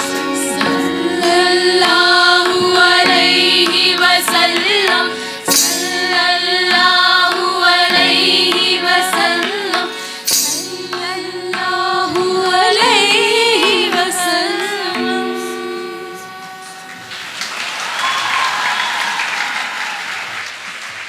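Live qawwali by a women's group: sung, ornamented lines over harmonium, tabla and keyboard. About sixteen seconds in the music ends and applause follows.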